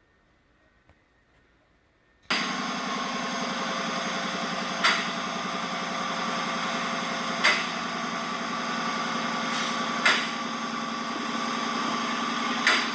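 After about two seconds of near silence, a 5.7L HEMI V8 running unmuffled, exhaust passing only through the catalytic converters, comes in abruptly and runs steadily in Eco mode, sounding like a 4-cylinder. A sharp knock cuts through it about every two and a half seconds.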